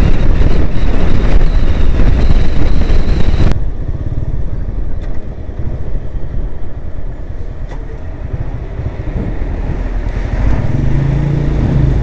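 Motorcycle riding: loud engine, wind and road noise at highway speed, cut off abruptly about three and a half seconds in, then the motorcycle's engine running quieter at low speed, its steady low note growing louder near the end.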